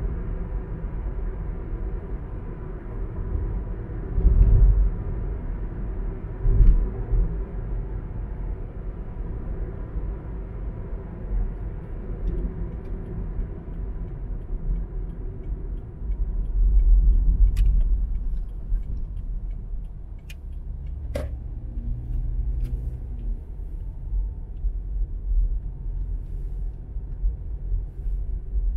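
A car driving along a road: a steady low rumble of engine and tyre noise that swells a few times, with a few sharp clicks about two-thirds of the way through. After that the engine settles to a lower, steadier note.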